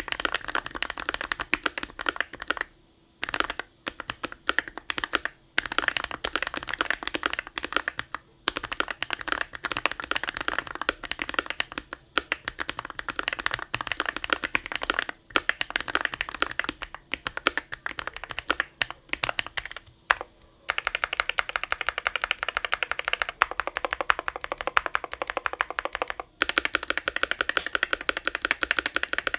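Fast, continuous typing on a GMMK Pro mechanical keyboard with lubed Glorious Panda tactile switches, its case dampened with painter's tape and cotton. Dense runs of key clacks are broken by a few brief pauses.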